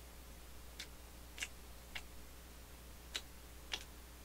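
Faint, sharp clicks at irregular intervals, about five in four seconds, over a low steady hum.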